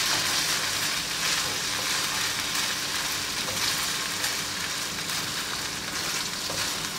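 Coconut milk curds sizzling steadily in their own rendered oil in a nonstick wok as they cook down into latik, stirred continuously with a spatula that scrapes across the pan. The curds are frying toward golden brown.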